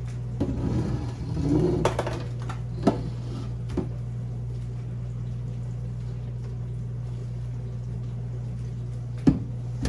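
Refrigerator parts being handled and set down: rustling and clatter for about two seconds, then a few single sharp knocks. A steady low hum runs underneath.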